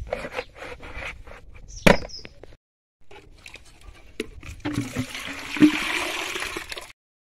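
Plastic clicks and knocks as the parts of a plastic poultry drinker are handled, with one sharp click about two seconds in. From about four and a half seconds in, water pours from a plastic jerrycan into the drinker's white reservoir, a steady splashing pour that stops suddenly near the end.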